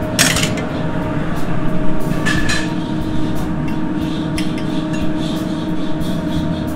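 Commercial kitchen ventilation running steadily, with a few clinks and scrapes of utensils against a pan and a plate.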